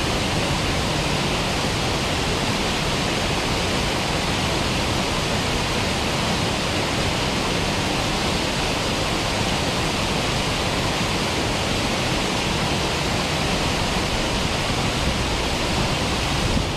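Several small waterfalls pouring over a rock ledge into a pool: a steady, even rush of falling water.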